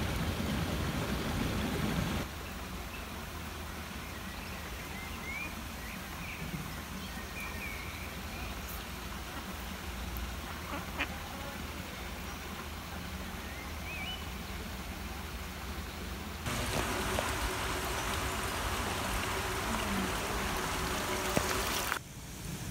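Mallard ducks calling now and then with short, high calls over a steady watery hiss. Near the end a louder, even hiss takes over.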